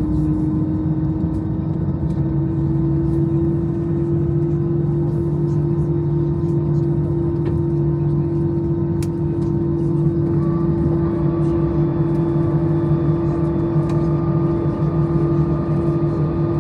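Cabin noise of an Airbus A320-214 with its CFM56-5B engines running: a steady drone with a strong humming tone that rises slightly in pitch over the first few seconds, and a faint higher tone joining about ten seconds in.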